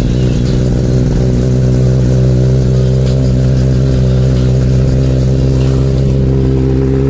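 Kawasaki ZX-10R's inline-four engine idling loudly and steadily at about 2,000 rpm, freshly started.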